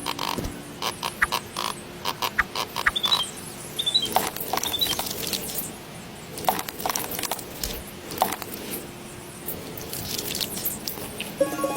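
Small tools clicking, tapping and scraping irregularly on miniature building materials, with a few short high squeaks a few seconds in.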